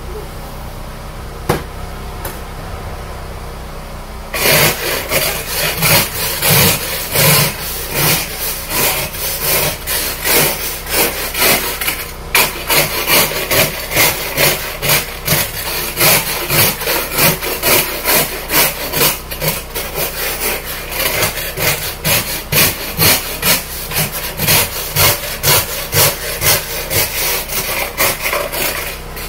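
Hand ice scraper rasping across an iced-over car windshield in repeated strokes, about two a second, starting about four seconds in with a brief pause near the middle.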